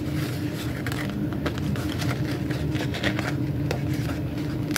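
Light rustling and small taps of planner paper and stickers as a sticker is lifted and pressed back down, over a steady low hum.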